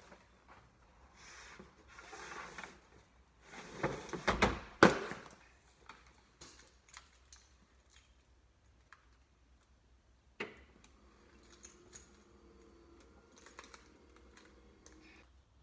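Cargo being handled in the back of a minivan: rustling and a few loud clunks about four to five seconds in, and a single knock around ten seconds. Near the end the power liftgate's motor runs with a steady hum as the hatch lowers.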